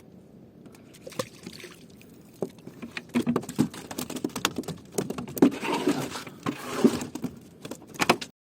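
Irregular knocks, taps and rattles of handling on a fishing boat, sparse at first and busier from about three seconds in, cutting off just before the end.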